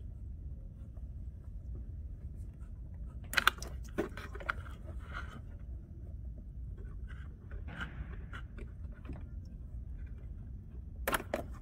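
Plastic wiring-harness connectors and wires being handled and pulled apart: scattered clicks and crackles, the sharpest about three and a half seconds in and again near the end, over a low steady hum.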